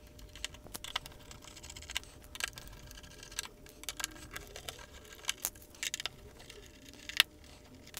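Torx 9 screwdriver working the small steel screws out of a hard disk's metal top cover: scattered light clicks and ticks of the bit and screws. There is a sharper click about seven seconds in.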